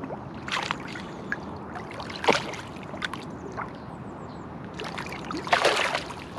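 Lake water sloshing and splashing as a small carp is let go from the angler's hands at the bank. There are a few short splashes, the loudest about two seconds in and a longer one near the end.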